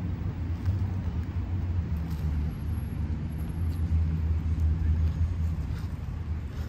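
Steady low rumble of motor traffic, with a few faint bites and chewing sounds from someone eating a spring roll.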